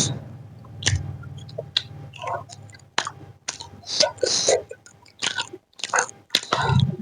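A person chewing food close to the microphone, eating-ASMR style: irregular wet smacks and short sharp clicks from biting and chewing.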